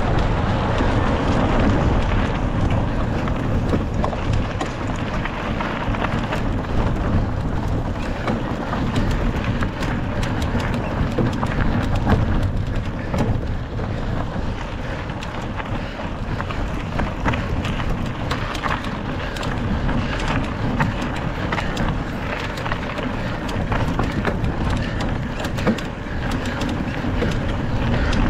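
Mountain bike ridden over rough trail: wind rushing steadily on the microphone, with frequent clicks and rattles from the bike and tyres over the ground.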